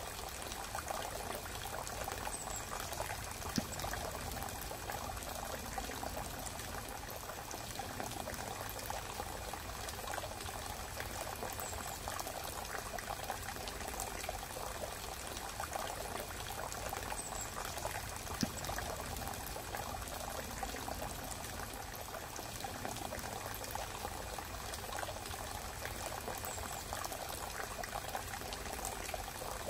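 Steady rushing, trickling water noise with no music, broken by two faint sharp clicks, one a few seconds in and one past the middle.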